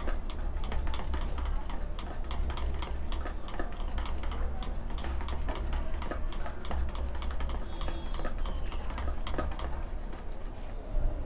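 Rapid, irregular clicking and scraping of a utensil against a metal bowl as a thick, lump-free batter of gram flour (besan) and yogurt is beaten by hand, with no water added. A steady low hum runs underneath.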